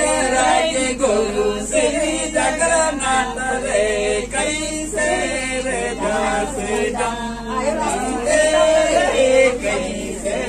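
A group of voices singing a folk song together in chorus, with a double-headed hand drum beaten along.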